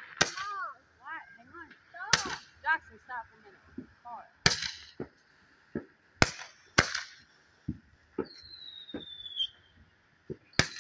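Fireworks going off: about six sharp bangs a second or two apart, with smaller pops between them. About eight seconds in, a thin whistle falls slowly in pitch for over a second, and another starts just before the end.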